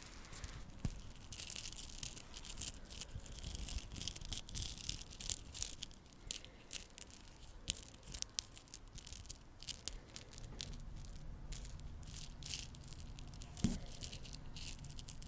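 Close-miked ASMR trigger sounds: a dense run of soft, quick crackles and clicks, thinning out toward the end.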